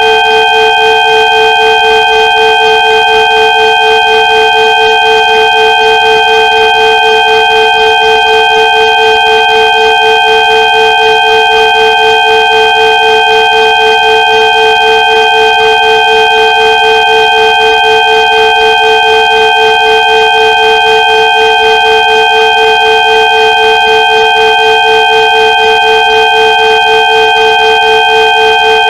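Synthesized sound-therapy tones: several steady electronic tones held together at once, with a slight even wavering in loudness.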